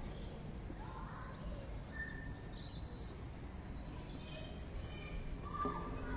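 Faint outdoor ambience: a steady low rumble with a few short, faint bird chirps scattered through it.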